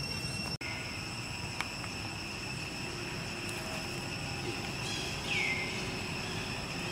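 Steady, high-pitched insect drone, with a short falling call about five seconds in.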